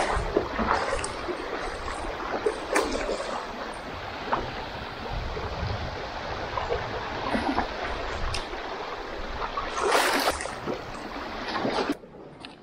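Small waves lapping and trickling over a shallow rocky limestone shore, with many little splashes and a louder splash about ten seconds in. The sound stops abruptly near the end.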